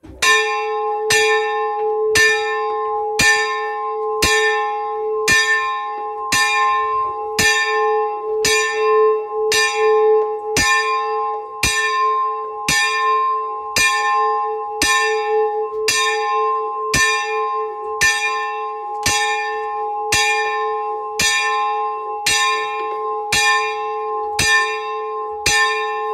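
A single church bell rung by pulling its rope, struck about once a second in a steady, even rhythm, each stroke ringing on into the next. It is the monastery's call to prayer.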